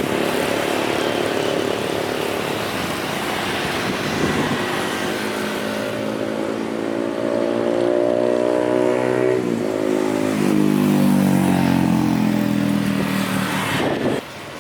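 Jet airliner's engines at takeoff power on a departure, a loud steady run whose tones slide slowly down in pitch as the aircraft passes. It is loudest about eleven seconds in and cuts off suddenly near the end.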